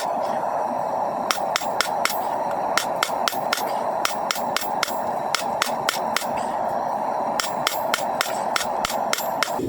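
Hand hammer striking steel on an anvil in a steady rhythm of about two to three blows a second: forging a knife blank made from a coil spring. A steady rushing noise runs underneath.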